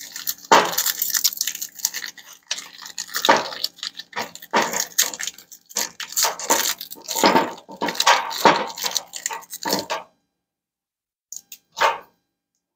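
A stiff plastic blister pack crinkling and crackling as hands pull and twist at it, trying to get it open. The sound is dense and irregular for about ten seconds, then stops, with one short click near the end.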